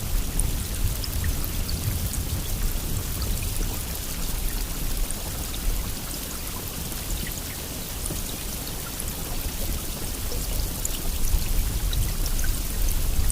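Steady rainfall: an even hiss of rain with scattered individual drop ticks over a low rumble, easing slightly midway and building again near the end.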